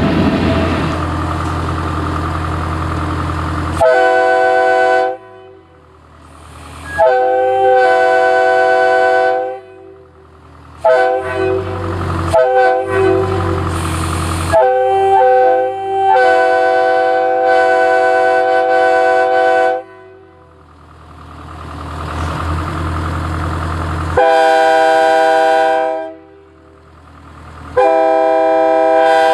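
Multi-chime locomotive air horns (Leslie and Nathan) blown in a series of blasts of a loud chord, some held for several seconds, some short and broken up as the valve is worked. A low steady hum runs for the first few seconds and comes back in a longer gap between blasts.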